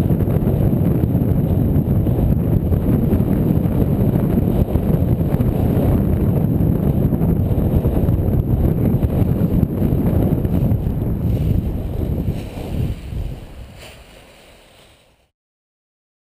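Heavy wind buffeting on a GoPro action camera's microphone as it flies through the air behind a paraglider, a deep steady rumble. It fades away about three seconds before the end and gives way to silence.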